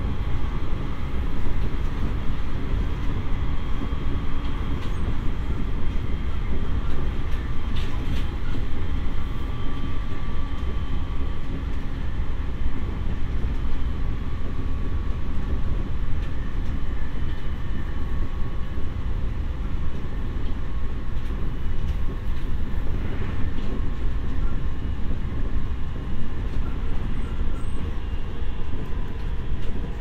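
JR East E501 series electric train, motor car MoHa E501-2, running along the line: a steady low rumble of wheels on rail, heard inside the car, with faint steady whines above it.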